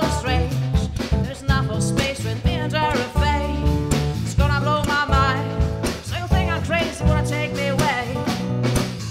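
Acoustic band performance: a voice singing with vibrato over a strummed Maton acoustic guitar.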